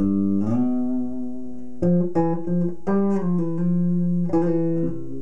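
Electric bass guitar played with the fingers: a short run of notes, some plucked and some joined legato, with a slide up in pitch under a second in and hammer-ons and pull-offs between plucks.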